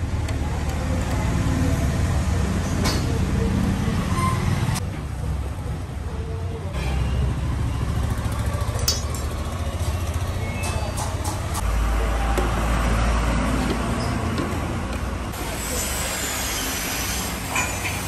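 Steady low background noise of road traffic, with scattered light metallic clinks.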